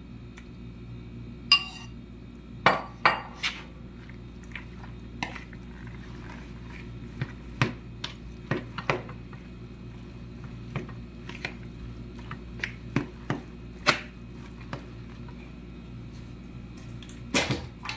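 A metal fork clinking and scraping against a mixing bowl while eggs are stirred into cooked spaghetti and grated cheese: irregular clicks and taps, a few sharper ones about a second and a half in and near the end.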